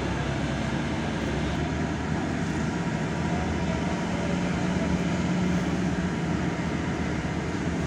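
SA139 diesel railcar heard from inside while running between stations: a steady low engine hum over an even rumble of wheels on track.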